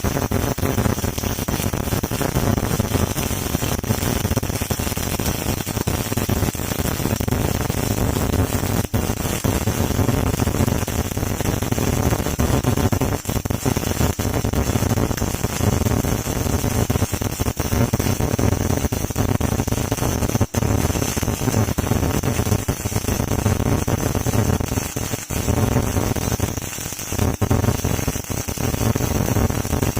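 MIG welding arc running, a steady crackling hiss broken by a few brief gaps.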